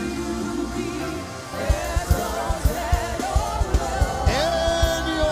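Live gospel praise music: a singer's voice over a band with a steady drum beat, the beat dropping out briefly about a second in.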